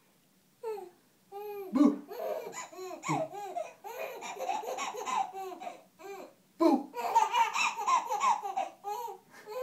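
A baby cackling with laughter, a long run of short, high-pitched laughs that pause briefly about two-thirds of the way through and then start again.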